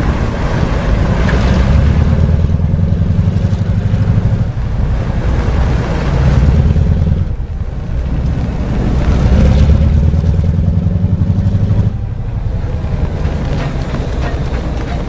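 Train plowing through snow on the tracks: a heavy, loud low rumble with a rushing of snow and wind over it, surging and easing a few times.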